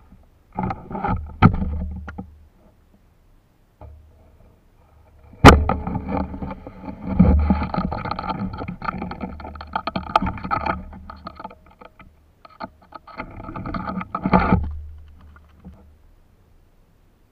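Shallow tidal water splashing and sloshing in three bursts, with a sharp knock about five and a half seconds in.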